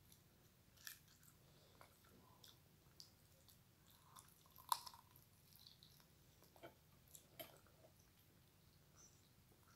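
Quiet, close-up chewing and mouth sounds of someone eating, with scattered soft clicks and one sharper click about halfway through.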